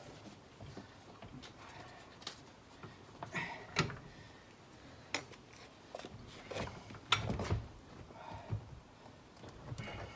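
Scattered light clicks and knocks of hand-work on a car door hinge while a hinge pin is being fitted, with a few sharper knocks mid-way.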